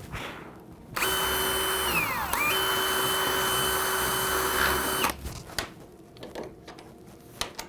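Electric drill running for about four seconds, reaming out the hole in a pine door for the thumb latch bar so it slides through easily; its whine sags briefly under load about two seconds in, then picks back up before it stops abruptly.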